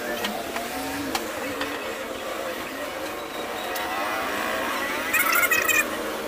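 Cordless drill whirring in a short burst a little after five seconds, its pitch rising and falling, over a steady background noise with a few light clicks of hand work.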